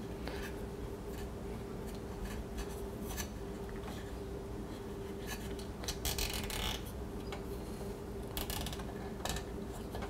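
Plastic zip tie being fastened around a silicone hose, with light clicks and rubbing as it is handled and two short rasps of the tail pulled through the ratchet, about six seconds in and again near 8.5 seconds. A faint steady hum runs underneath.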